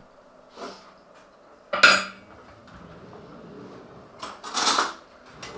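Crockery and metal cutlery clattering: a sharp ringing clink a little under two seconds in, then a rougher clatter and scrape between four and five seconds in.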